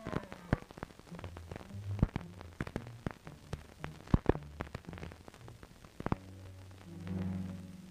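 Crackle and sharp pops from a worn 1943 optical film soundtrack. Under them, soft low musical notes step from pitch to pitch and swell into a held low chord near the end.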